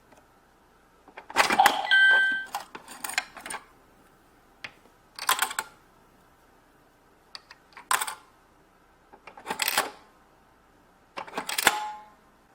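Toy electronic cash register being handled: five or so short bursts of plastic clatter and clicking, a couple of seconds apart, with brief electronic beep tones in the first and last bursts.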